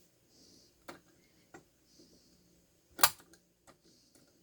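A small steel multi-tool's flathead screwdriver tip working a screw on an outlet cover plate: a few separate metal clicks and taps, with one much sharper, louder click about three seconds in.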